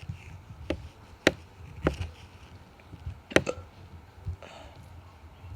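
A person hiccuping: several short, sharp hiccups, the loudest about a second and three and a half seconds in, over a low steady rumble.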